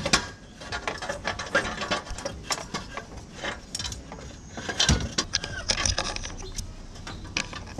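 Stock metal downpipe being lifted, shaken and worked out of a Honda Civic Sport's engine bay: irregular metallic clanks, scrapes and rattles, with a louder cluster about five seconds in.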